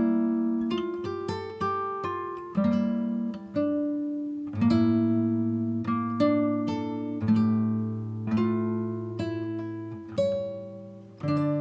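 Background music on plucked acoustic guitar: notes and chords picked about once a second, each ringing out and fading.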